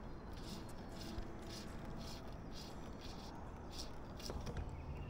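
Fly line being stripped in through the rod guides in short pulls: a run of soft, scratchy rasps, several a second, over a low steady rumble.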